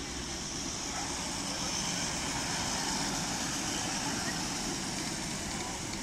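Miniature railway train running past close by: the small locomotive and the riding cars rolling on the track with a steady mechanical running noise, a little louder in the middle as it passes.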